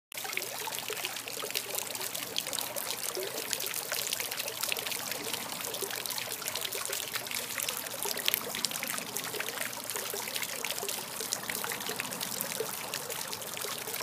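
Bird Girl garden fountain running: water bubbling up in the two shallow bowls held in the statue's hands and trickling over their rims, a steady trickle with many small splashes.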